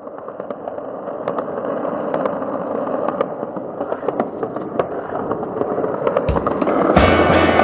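Skateboard wheels rolling on asphalt: a rough, steady rumble with irregular clicks, growing louder. A heavy thump comes about six seconds in.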